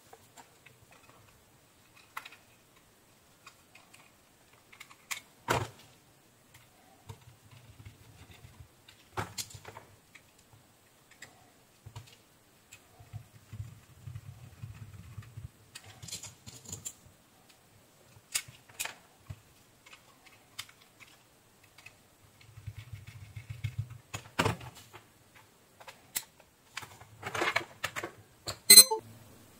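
Scattered plastic clicks, taps and light rattles from a handheld barcode scanner's housing and small parts being handled and worked on with a small screwdriver, with one sharp click near the end.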